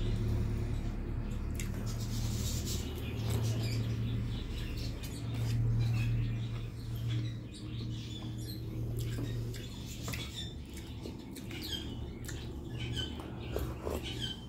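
Close-up eating sounds: fingers mixing rice on a banana leaf, with small wet clicks, smacks and chewing. A steady low hum underlies it.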